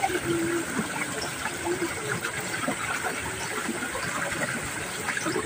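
Steady rushing of water flowing along a small irrigation channel.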